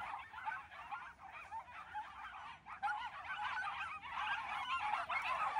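A pack of Shetland sheepdogs yapping all together, a dense overlapping chorus of short high barks that never lets up and grows louder near the end.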